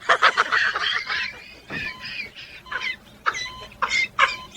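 A parrot squawking and chattering in a run of short pitched calls, sliding up and down in pitch.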